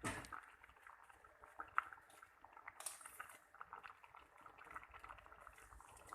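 Pot of black-eyed beans simmering: faint bubbling with many small pops, and a single sharper click about two seconds in.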